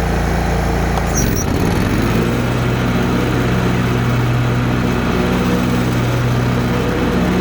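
Kawasaki FS V-twin engine of a Kubota Z421 zero-turn mower running fast. About a second in there is a click as the blades are engaged, and the engine pitch sags under the load of the mower deck. It then settles into a steady run with the blades turning.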